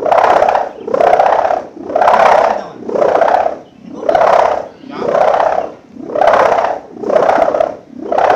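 Kite hummer (sendaren) of gift ribbon doubled with clear tape and plastic end strips, giving a loud snoring drone that swells and fades about once a second, nine times over, a sound likened to a helicopter or a warship.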